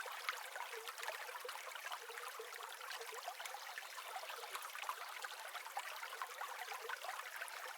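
Water trickling and flowing steadily, with many small irregular splashes and drips.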